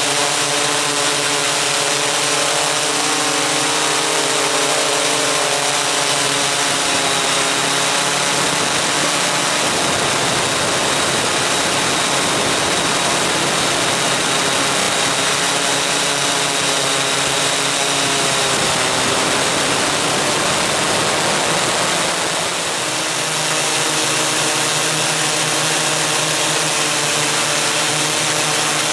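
Onboard sound of a coaxial eight-rotor MikroKopter multicopter (Koax-Quadro X8): its electric motors and propellers whirring steadily, several pitches shifting as the motors change speed. The level dips briefly a little over twenty seconds in.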